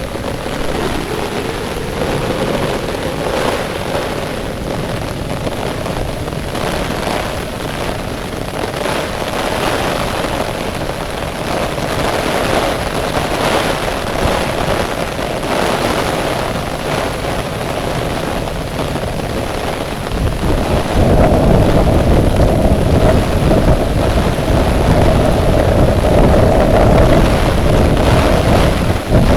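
Steady hiss of heavy rain. About two-thirds of the way through, a louder low rumble suddenly comes in and stays.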